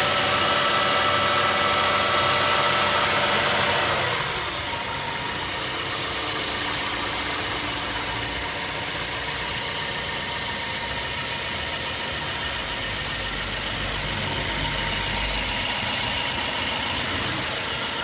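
BMW N43 four-cylinder petrol engine idling on a cold start. About four seconds in, the fast idle drops and the pitch falls, then it runs steady at a lower idle.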